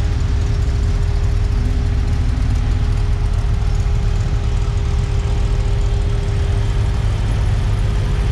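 Car engine idling steadily with a low rumble.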